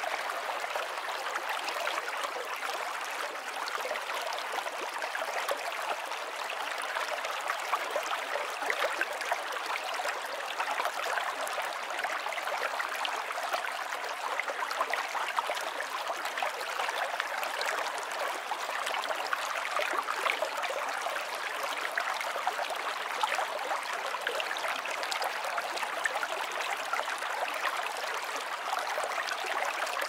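Shallow forest stream flowing and babbling over rocks and stones: a steady, bright rush of water with little low rumble.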